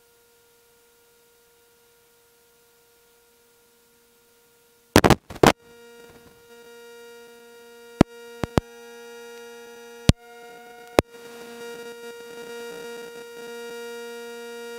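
Electrical hum from sound equipment, very faint at first. About five seconds in come a few loud pops, then a stronger steady hum with a stack of overtones and several single sharp clicks. A hissy noise rises under the hum toward the end.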